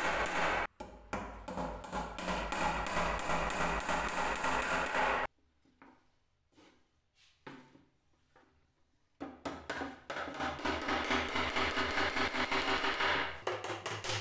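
Small hammer tapping thin nails into a plywood panel on a wooden box, in quick repeated strikes. The tapping stops about five seconds in, with only faint ticks for about four seconds, then resumes.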